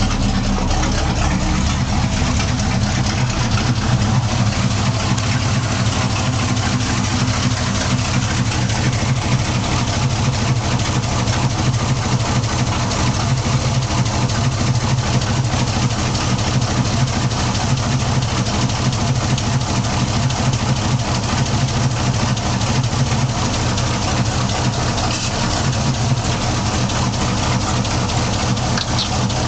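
Propane-fuelled Chevy 350 V8 idling steadily, loud and obnoxious through open full-length headers with no exhaust pipes fitted.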